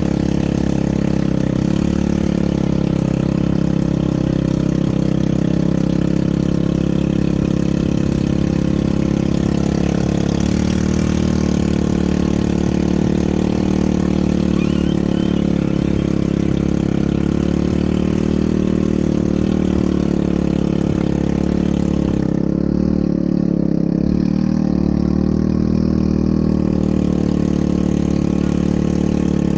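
ATV engine running steadily at an even pitch, with slight changes in speed.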